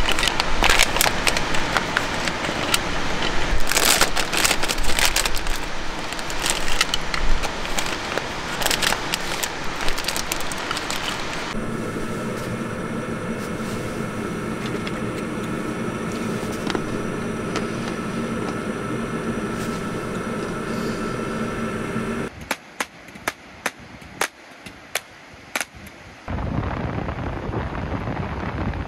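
Plastic snack pouches crinkling and small crackers and snacks tipped out onto a wooden plate, with many small clicks as they land. About halfway through this gives way to a steady hum with a low tone, and near the end to an even hiss.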